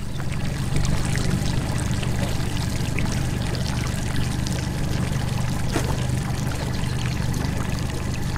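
Boat running on the river: a steady low motor drone with water rushing and splashing against the hull.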